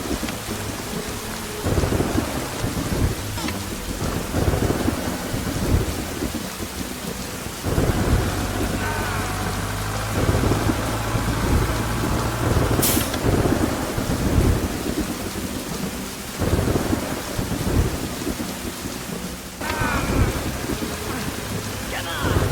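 Steady heavy rain with repeated low rumbles of thunder.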